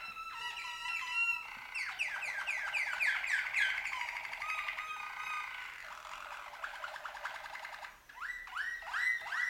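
Domestic canary singing a long song of repeated phrases: a fast trill, then runs of quick falling notes, and after a brief break about eight seconds in, a phrase of rising, curving notes.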